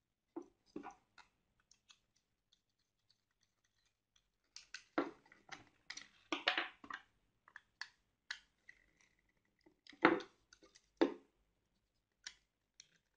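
Clicks and knocks of a plastic wall switch and its mounting box being handled while wires are fastened into the terminals with a screwdriver, the loudest knocks about five to seven seconds in and again around ten seconds, with a brief high squeak near eight seconds.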